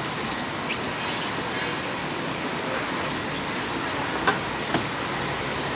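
Busy city street ambience: a steady wash of traffic noise, with two sharp clicks a little after four seconds in.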